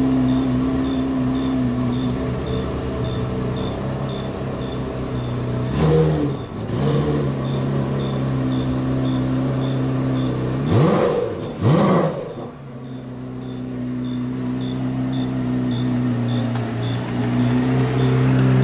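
Chevrolet Corvette C8 Z06's 5.5-litre flat-plane-crank V8 idling, blipped twice briefly about six seconds in, then revved harder twice in quick succession around eleven seconds before settling back to idle. A faint regular tick, about two a second, runs underneath.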